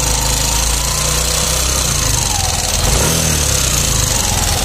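Yamaha Aerox 155 scooter's single-cylinder engine running steadily with a very rough, harsh noise, likened to a coconut grater. It is a fault that several workshops have not been able to find.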